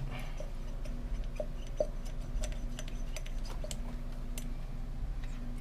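Grease gun being handled while a grease cartridge is loaded: scattered light clicks and small metallic ticks, over a steady low hum.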